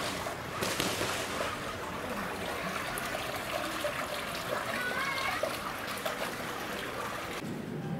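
Steady rush of water spilling from a wall outlet into a pond, cutting off suddenly near the end.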